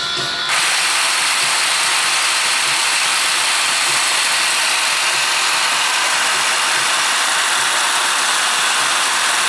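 A small motor whirring steadily and loudly, starting about half a second in.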